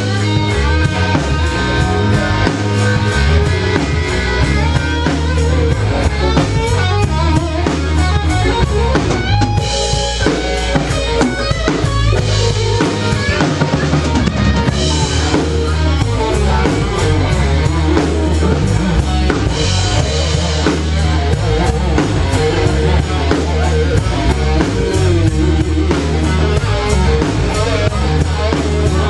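Live blues-rock band playing an instrumental stretch: guitar over a full drum kit and bass, loud and steady.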